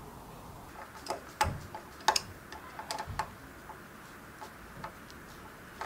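Irregular light clicks and small knocks as a diesel heater's fuel pump and its plastic mounting clamp are handled and fitted to a brick wall with a hand tool. The clicks are thickest and loudest in the first half.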